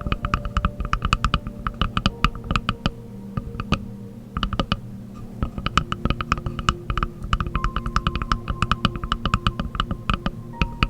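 Rapid tapping on wooden objects: quick runs of many sharp taps a second, with short pauses about four and five seconds in. Faint held tones sound beneath the taps and shift pitch a few times.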